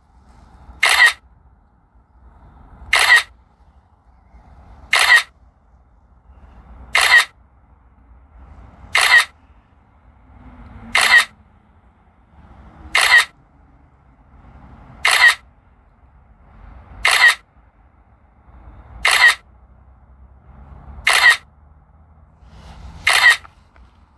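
A camera shutter click repeating about every two seconds, twelve in all: the drone camera is shooting timed interval photos.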